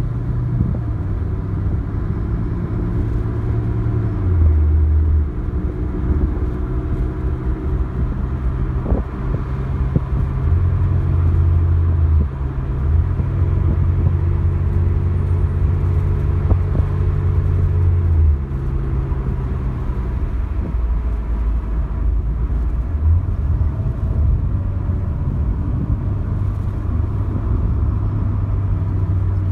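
Chevrolet Aveo T300's 1.6-litre four-cylinder petrol engine and tyre noise heard inside the cabin while driving. The steady hum rises and falls gently as the car speeds up and eases off. The front suspension is running with the right anti-roll bar link removed, and there is no knocking from it.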